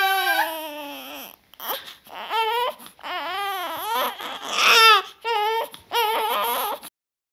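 A woman's scream in childbirth sliding down in pitch and dying away, then a newborn baby crying in several wavering wails. The crying cuts off suddenly near the end.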